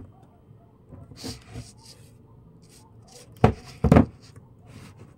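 Small two-way speaker cabinets being handled and set down on a table: light rubbing and shuffling, then two sharp knocks close together about three and a half seconds in.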